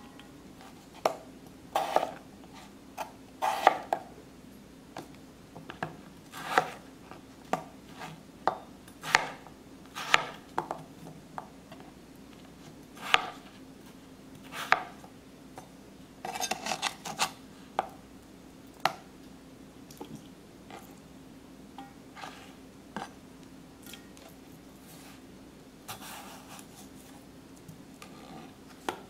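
Chef's knife cutting peeled potatoes on a plastic cutting board: irregular sharp knocks of the blade against the board, with a quick run of cuts about halfway through.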